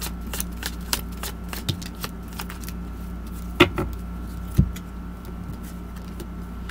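Tarot cards being shuffled and handled: a run of light, irregular card snaps and clicks, with two louder knocks about three and a half and four and a half seconds in, over a steady low hum.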